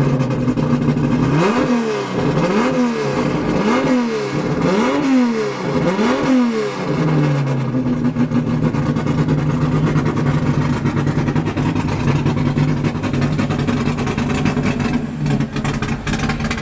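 Six- or eight-cylinder drag car engine idling, then revved five times in quick succession, each rev rising and falling about a second apart, before settling back to a steady idle.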